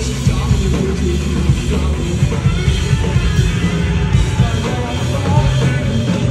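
A rock band playing live at full volume, with the drum kit hitting a steady beat under the guitars.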